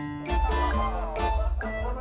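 Background music: a melody of plucked notes over a deep bass line that comes in about a third of a second in.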